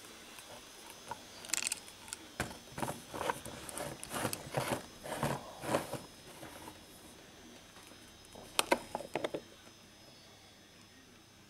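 Handling noise from a small painted mini-nuke replica turned over in the hands on a workbench: a scatter of light clicks, knocks and rubbing, busiest for a few seconds near the start, then a shorter burst later on.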